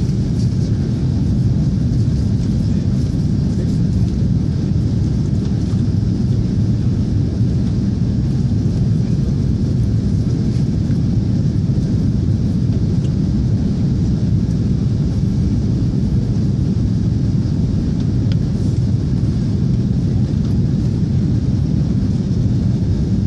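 Airbus A340 jet airliner's engines and airflow, a steady low rumble heard from inside the passenger cabin as the aircraft climbs after takeoff.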